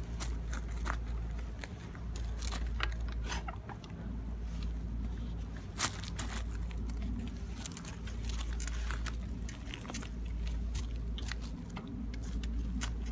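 A bicycle being handled on gravel while its seat height is adjusted: scattered small clicks and crunches, with one sharper click about six seconds in, over a low steady rumble.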